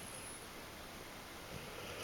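Quiet pause between snores: a faint steady hiss of a sleeper breathing, growing a little louder near the end.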